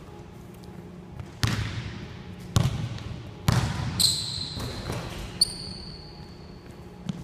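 A basketball bouncing and sneakers landing on a hardwood gym floor, echoing in the large hall: three heavy thuds about a second apart, then a drop-step dunk at the rim about four seconds in. High squeaks follow, after the dunk and again near the end.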